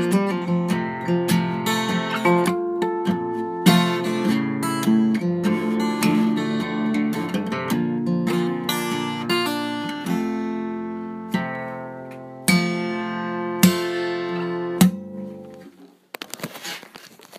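Acoustic guitar strummed through a four-chord progression with no singing. About ten seconds in the strumming thins to single chords left to ring, and the last one dies away near the end.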